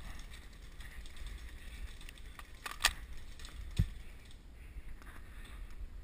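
Airsoft rifle magazine being changed: a run of small plastic and metal clicks and rattles, with a sharper click about three seconds in and another about a second later.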